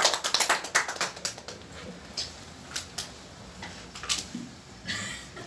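A small group applauding by hand, the clapping thinning out after about a second and a half into a few scattered claps.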